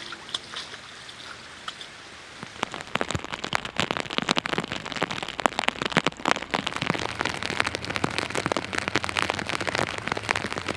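Heavy rain falling, its drops striking a surface close by in a dense, irregular run of sharp taps that sets in about two and a half seconds in after a quieter hiss.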